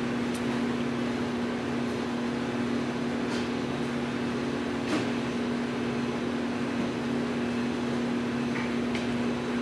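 A steady mechanical hum with a faint hiss, unchanging, with a few faint ticks.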